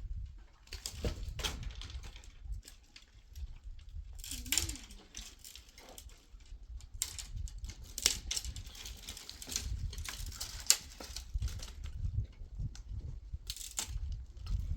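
Scattered knocks and clattering, as of things being handled, over a low rumble, with one short pitched call about four and a half seconds in.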